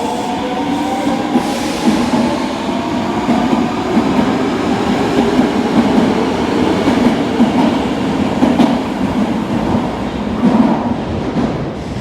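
Osaka Metro 22 series subway train pulling away: its motor whine rises in pitch and fades out in the first second, then a steady rumble and wheel clatter over the rails, easing off near the end.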